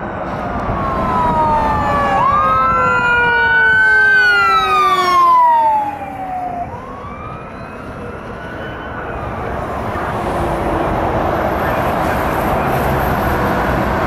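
Fire engine's siren wailing as the truck passes at speed, its tones sliding down in pitch as it goes by, with one wail rising and then falling. The siren drops away about six seconds in, leaving a steady rush of road traffic.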